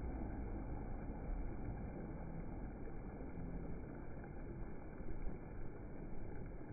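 Small waves washing in over sand at the water's edge: a steady rushing with a low rumble that swells a little now and then.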